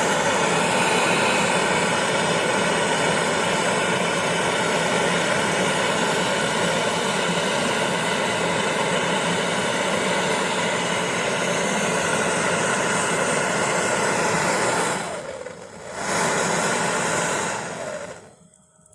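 Brazing torch flame running with a steady hiss as it heats a joint for brazing. It dips briefly about fifteen seconds in, then cuts off near the end.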